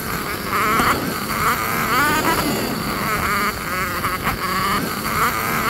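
Enduro dirt bike engine running under way, its pitch rising and falling repeatedly as the throttle is worked.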